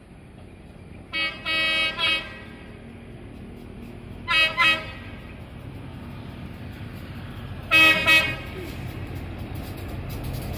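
A KAI BB303 diesel-hydraulic locomotive sounds its horn as it approaches: one longer blast about a second in, then a pair of short toots about four seconds in and another pair about eight seconds in. The rumble of the oncoming train grows louder near the end.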